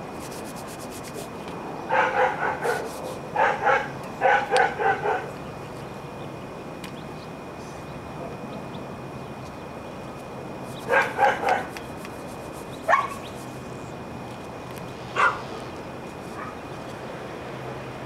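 A dog barking: quick runs of short, sharp barks about two seconds in and again around eleven seconds, then two single barks.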